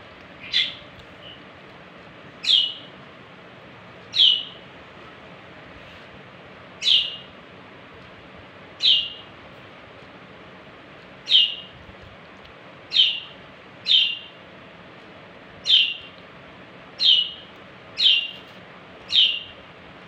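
Pet budgerigar giving single sharp chirps, each falling quickly in pitch. There are about a dozen, spaced one to two seconds apart.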